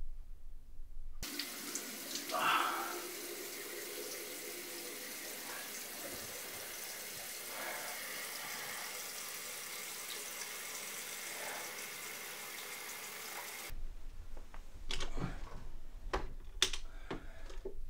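Water running from a tap as a steady hiss that starts suddenly about a second in and cuts off sharply some twelve seconds later. It is followed by a few sharp knocks and clatters of a wooden bedside drawer being opened and rummaged.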